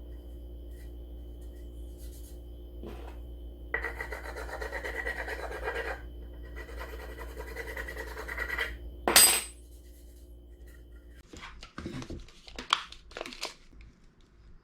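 A power tool humming steadily, with two rough scraping passes of about two seconds each as it works wood, a sharp loud clack about nine seconds in, then the hum stops and a few light clatters follow.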